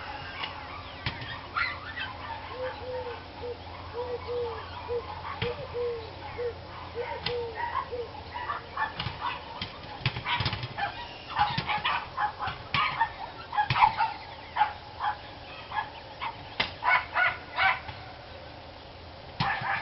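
Several dogs barking over and over in short, sharp barks in irregular runs, with more of them about halfway through and near the end.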